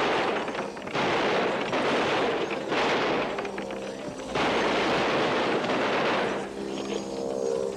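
Heavy machine gun firing in four long bursts with short breaks between, stopping about six and a half seconds in.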